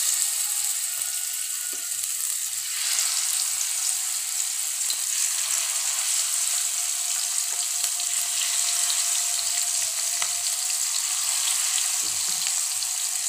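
Masala-coated lady fish pieces shallow-frying in oil on a dosa griddle: a steady sizzle that grows a little louder about three seconds in as more pieces go into the oil.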